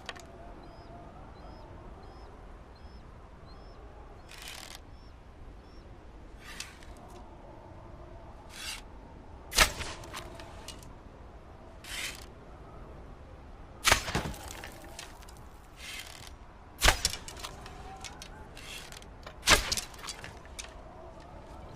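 Archery bow being shot: four sharp, loud snaps of the string releasing, about three seconds apart, each followed by a short rattle. Before them come several softer swishes.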